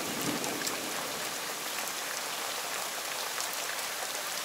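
Heavy rain pouring down in sheets: a steady hiss with scattered sharp drop ticks.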